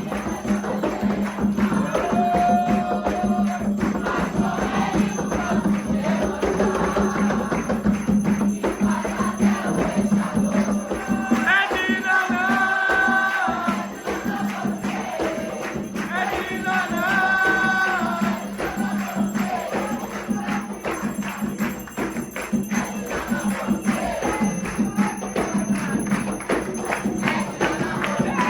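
Voices singing a chant, with held notes, over dense, fast hand percussion, and a steady low hum beneath.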